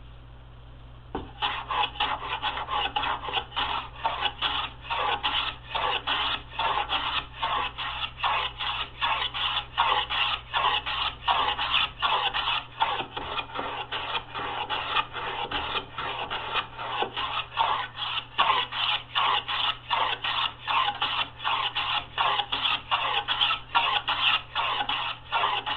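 Hand plane cutting along the edge of a wooden board in quick back-and-forth strokes, rounding the corner into a bullnose: a rapid run of scraping swishes, about two a second, starting about a second in. A faint steady electrical hum sits underneath.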